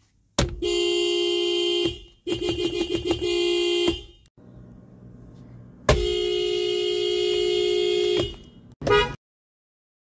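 Hybrid car's horn sounded from the steering wheel and heard from inside the cabin. There is a honk of about a second and a half, then a run of quick taps, then a long honk of over two seconds, and a short toot near the end.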